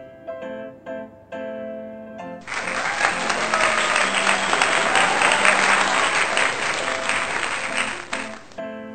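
Gentle piano music. A burst of applause starts suddenly about two and a half seconds in, covers the music, and cuts off just as suddenly shortly before the end, when the piano notes carry on alone.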